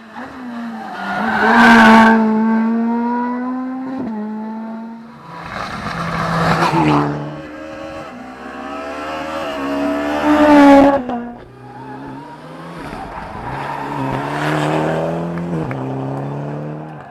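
Rally cars passing at speed, engines at high revs. The engine note rises and falls with gear changes, building to a loud peak about every four seconds as car after car goes by.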